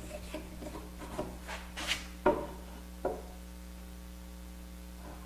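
Wood being handled and set in place on a workbench: light taps and rubbing, then two sharper knocks about two and three seconds in, after which only a steady low hum remains.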